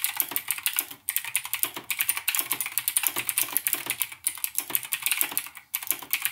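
Fast typing on a Razer BlackWidow Chroma X mechanical keyboard with Razer Green switches: a rapid run of sharp, clicky keystrokes broken by a few short pauses.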